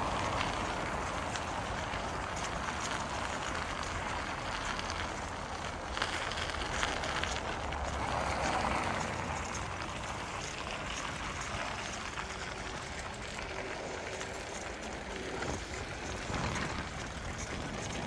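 Bicycle tyres rolling over an icy, snow-packed bike path: a steady gritty rolling noise, with a few sharp knocks about six and sixteen seconds in.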